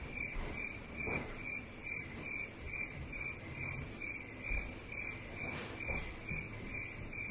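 A high chirping tone repeating evenly, about two chirps a second, with a few soft thumps underneath.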